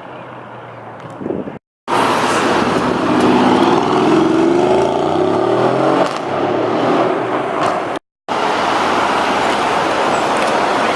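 Mercedes-AMG GLE 63 S Coupe's twin-turbo V8 accelerating hard, its pitch rising over several seconds, between two abrupt cuts to silence; after the second cut comes a loud, steady rush of engine and road noise.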